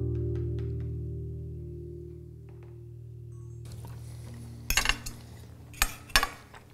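Background music: a held guitar chord rings out and slowly fades over the first few seconds. Then forks and knives clink and scrape on ceramic plates as food is cut, with a few sharp clinks in the second half.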